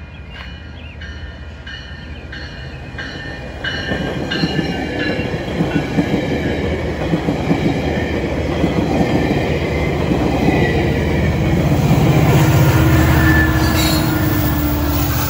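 A GO Transit commuter train passing close by: a string of bilevel coaches rumbling and clattering over the rails, growing louder, then the diesel locomotive pushing at the rear going by near the end with a heavy engine rumble. A railway crossing bell dings rhythmically at the start before the train noise covers it.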